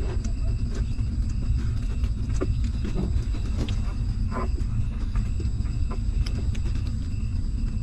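A steady low rumble throughout, with faint small clicks and smacks scattered through it, the sound of newborn puppies suckling at their mother.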